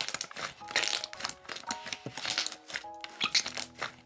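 Clay-type slime being kneaded and squeezed by hand, giving a dense run of irregular crackling, crunchy clicks. Soft background music plays underneath, plainer near the end.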